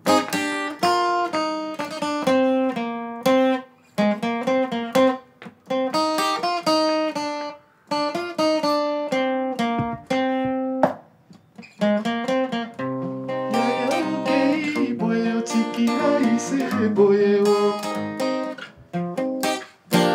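Acoustic guitar plucking a melodic line in separate ringing notes with short pauses between phrases. About two-thirds of the way in the playing grows fuller, with a low held note underneath.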